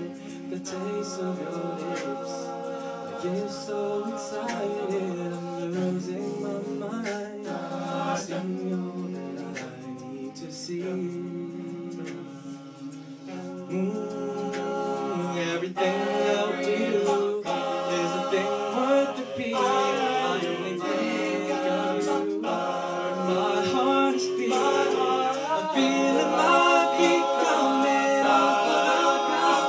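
All-male a cappella group singing in close harmony, several voices holding chords over a bass part. The singing grows fuller and louder about halfway through.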